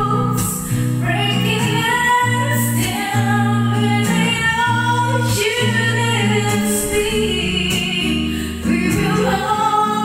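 A woman singing a slow ballad into a microphone over a backing track of sustained low chords.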